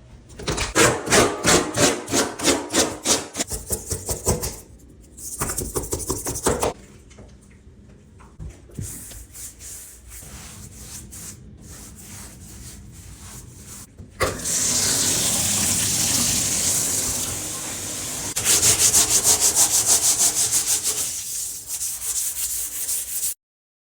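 Sandpaper rubbing back and forth on a bathtub's surface in quick, rhythmic strokes, about four a second, in several bursts with short pauses. About 14 seconds in, a steady high hiss starts, with rapid rubbing strokes over it.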